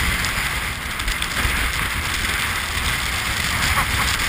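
Gale-force wind buffeting the action camera's microphone, a steady low rumble under a broad hiss.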